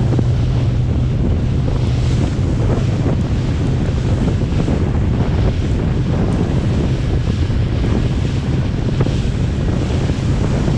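Wind buffeting the microphone and sea waves washing around a small fishing boat, over a steady low hum.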